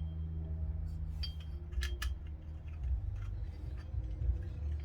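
A few light metallic clicks and scrapes of greased suppressor parts being handled and fitted together by hand, over a low steady hum.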